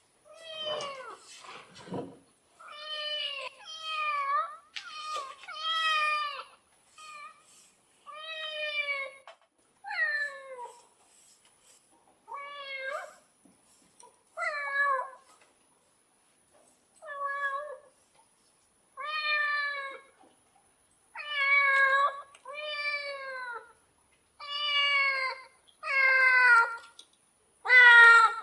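A domestic cat meowing over and over, about eighteen meows in a row with short pauses between them. Each meow drops in pitch at its end, and the meows grow louder toward the end.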